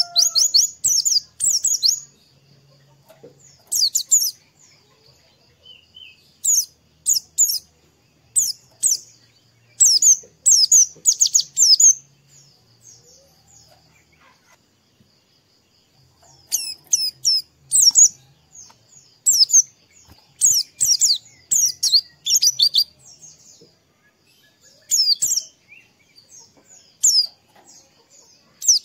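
White-eye (pleci) singing: clusters of rapid, high chirps that sweep downward, coming in bursts of a second or two with short pauses, and a longer lull about halfway through.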